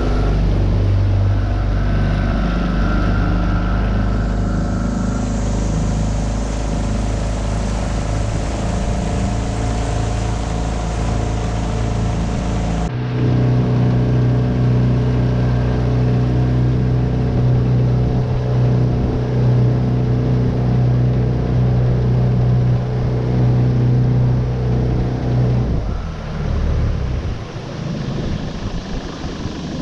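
A Tohatsu 9.8 four-stroke outboard motor running steadily, pushing a small V-bottom boat under way. About halfway through the engine note changes suddenly to a new steady pitch, and near the end the steady note breaks up into an uneven, lower sound.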